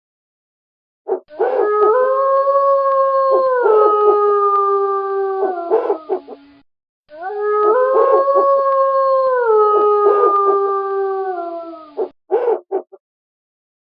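A wolf howling: two long, alike howls of about five seconds each, each holding its pitch and then stepping down partway through. Short owl hoots come just before the first howl and again after the second, near the end.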